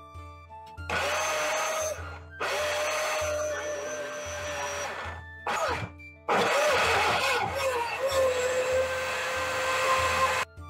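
A small motor running in three bursts, the longest about four seconds, each with a steady whine, over background music.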